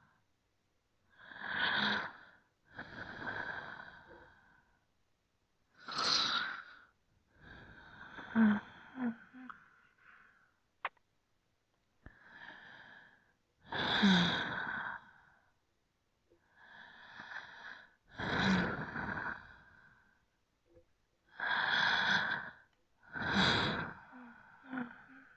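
Slow, deep human breathing: about a dozen separate inhales and exhales, each a second or so long, with short silences between them, a few ending in a brief throaty catch.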